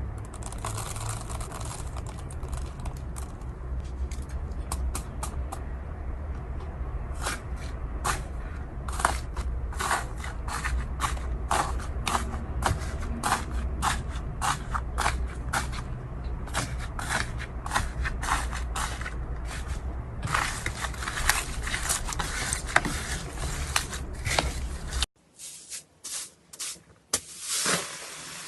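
Slime being squeezed and worked by hand, giving many sharp clicking and crackling pops. A steady low hum runs underneath and stops at a cut about 25 seconds in, while the clicks go on.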